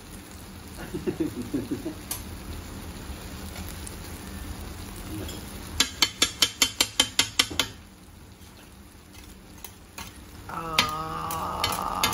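Metal spatula chopping and scraping on a hot iron teppan griddle, a quick run of about ten sharp taps as raw eggs are mixed into sizzling Fujinomiya yakisoba. A steady pitched hum comes in near the end.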